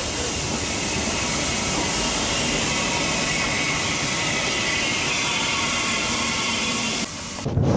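Steady, loud hiss of steam from a narrow-gauge steam locomotive, cutting off suddenly near the end, followed by wind buffeting the microphone.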